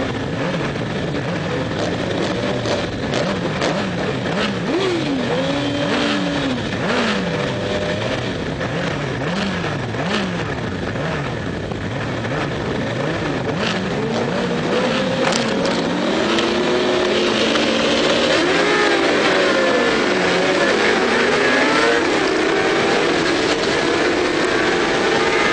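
Several racing motorcycles revving on the start grid, their engine pitches swooping up and down as the riders blip the throttles. About two-thirds of the way through the pack launches and the engines accelerate hard together, louder and denser, with the rush of air on a camera mounted on one of the bikes.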